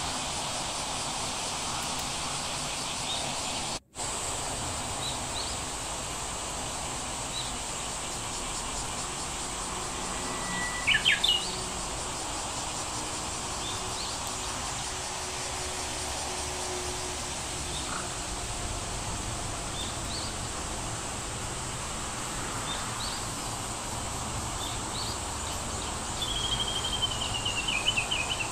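Steady background hiss with scattered faint high chirps. A short cluster of sharp, high squeaks about eleven seconds in is the loudest moment. Near the end comes a quick, rapidly pulsed trill that falls in pitch.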